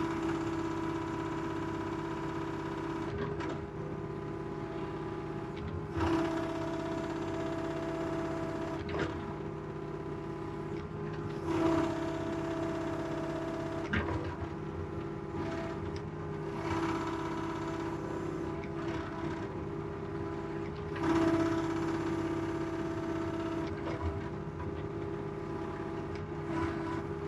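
Mini excavator's diesel engine and hydraulics running steadily, heard from inside the operator's cab. Several times a higher whine and a brief rise in level come in as the boom and bucket are worked, then ease off again.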